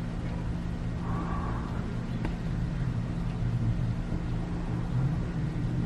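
A steady low motor or engine hum that keeps an even pitch, with a faint click about two seconds in.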